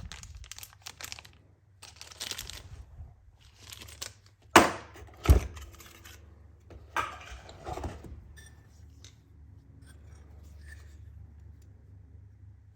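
Packaging being handled and torn open while the tool's accessories are unpacked: crinkling and rustling with scattered small clicks. Two sharp knocks come about four and a half and five seconds in, the loudest sounds here.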